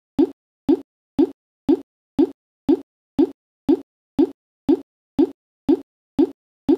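A short plopping sound repeated evenly about twice a second, each one the same, with a slight rise in pitch and silence in between.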